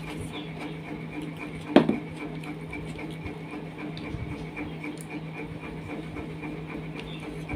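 Fingers mixing rice and curry on a steel plate, soft scattered clicks of hand against plate, with one sharp knock about two seconds in, over a steady electrical hum.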